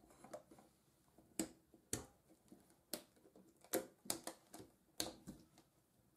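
Faint, irregular clicks and taps of a container being handled and covered by hand.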